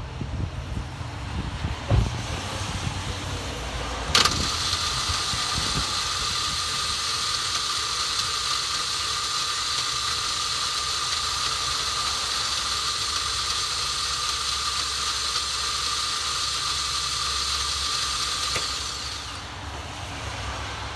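Starter motor of a 2012 Hyundai Sonata whining steadily with a hiss, starting suddenly about four seconds in and fading out near the end, with no engine catching: the car fails to start.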